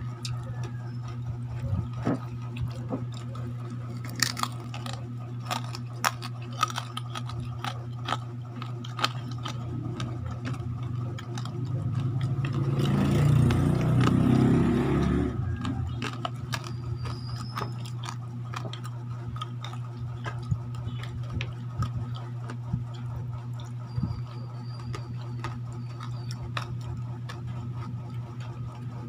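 Crisp crackling and clicking of deep-fried pork skin being broken apart by hand, with small knocks of handling at the plate, over a steady low hum. About halfway through, a louder rushing noise swells for a few seconds and fades.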